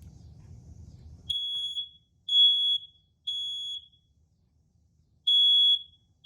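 BRK smoke alarm's piezo horn sounding under its test button: loud, high-pitched beeps about half a second long. Three come a second apart, then a pause, then the next round of three begins, the temporal-three evacuation pattern.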